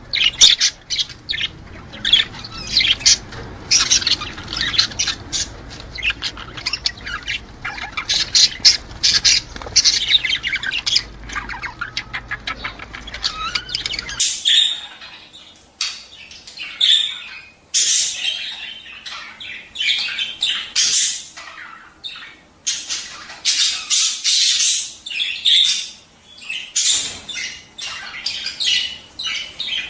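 Budgerigars chattering: a fast, continuous warble of chirps and squawks, the courtship chatter of budgies in breeding condition. About halfway through, a low background hum drops out.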